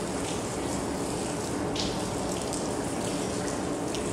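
Steady rain, an even hiss with single drops striking close by, two of them standing out a little under two seconds in and again near the end.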